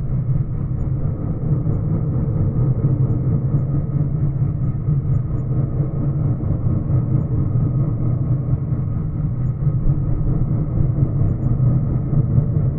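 A steady, low engine drone with a muffled, dull sound and no high end.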